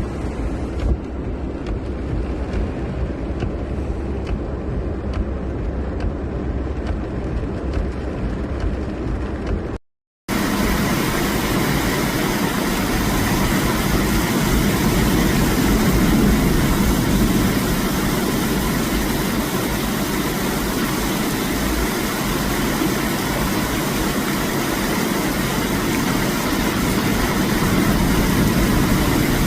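Torrential rain falling steadily, a continuous hiss. After a brief break about ten seconds in, it comes back louder and brighter.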